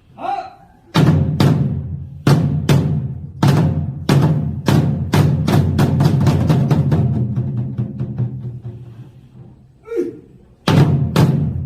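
Samul nori percussion ensemble playing: loud, sharp drum and gong strikes over a low ringing, speeding up in the middle, then dying away to a fading ring before two more strikes near the end.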